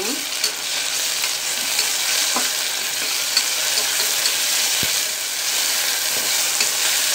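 Shallots, green chillies and ginger-garlic paste sizzling in hot sesame oil in an aluminium pressure cooker, stirred with a steel ladle. The frying makes a steady hiss, with light clicks of the ladle against the pot.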